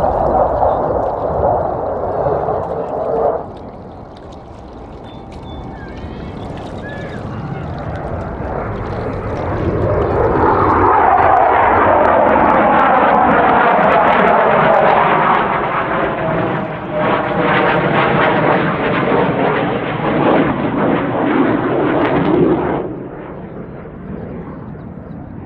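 Jet roar from a CF-18 Hornet's twin General Electric F404 turbofans. It cuts down suddenly about three seconds in, then swells over several seconds to its loudest, with a falling whine as the jet passes. It stays loud and rough before dropping away abruptly near the end.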